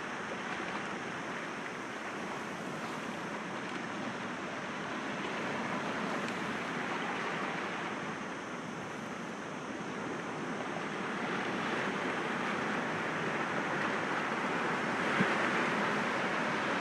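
Sea waves washing in as a continuous rushing surf, swelling gently about six seconds in and building again toward the end.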